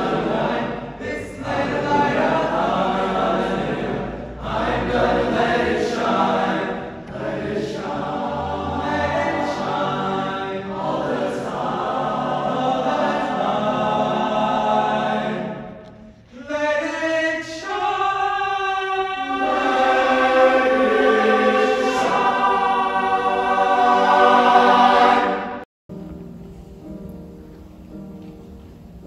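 A choir singing together in sustained pitched lines. About 26 seconds in it cuts off abruptly, and a quieter piece of music follows.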